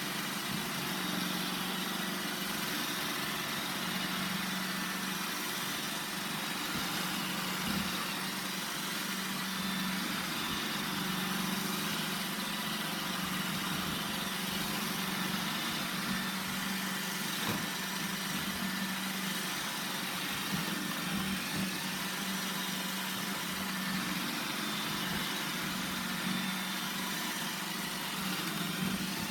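Roomba 960 robot vacuum running: a steady motor hum with an even hiss from its suction fan, and a couple of light knocks.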